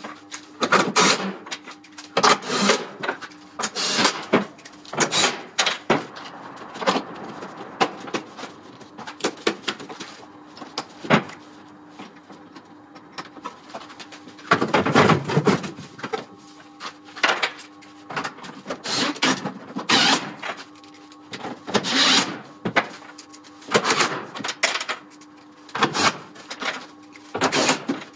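Irregular knocks, clunks and rattles of the Tesla Model S's plastic frunk tub and trim being refitted and tools being handled against them, with a longer spell of clatter about fifteen seconds in, over a steady low hum.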